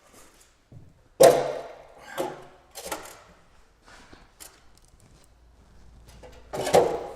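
Sharp knocks and clanks of metal tools and engine parts while the cylinder head is being taken off the engine. A loud knock comes about a second in, a few lighter ones follow, and another loud one comes near the end.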